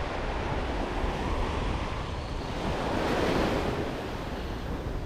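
Surf washing onto the beach, a wave swelling to its loudest about three seconds in and then easing off, with wind buffeting the microphone.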